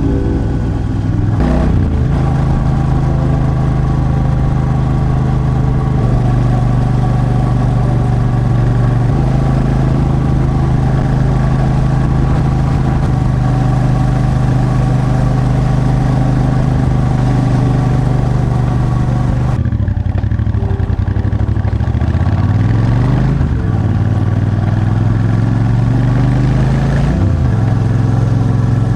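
Royal Enfield Super Meteor 650's parallel-twin engine running under way on the road, holding a steady note. About two-thirds of the way in the revs drop, then climb twice as the bike pulls through the gears.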